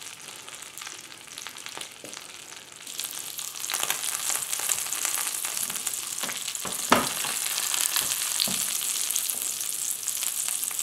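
Floured cod fillet sizzling in hot oil and butter in a frying pan, with scattered crackles and spits. The sizzle grows louder about three seconds in, and there is a sharper pop about seven seconds in.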